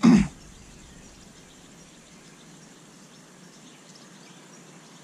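Faint, steady open-air ambience by a calm river, with a few faint high chirps, after a brief loud burst at the very start.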